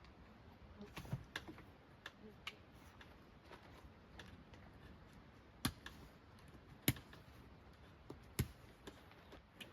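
Scattered light clicks and taps at an uneven pace, with three sharper knocks in the second half.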